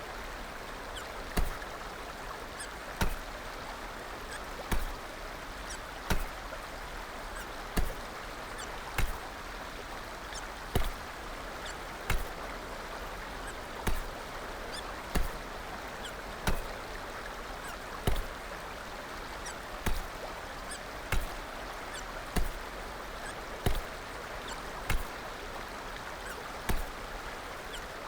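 Hiccups coming at a steady rhythm, about one every second and a half, each a short sharp hic, over a steady background hiss.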